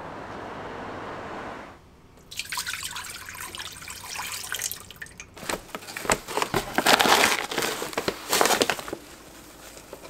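Liquid sounds: a steady, even pouring hiss for about two seconds, then after a short pause irregular dripping and crackling that grows loudest past the middle.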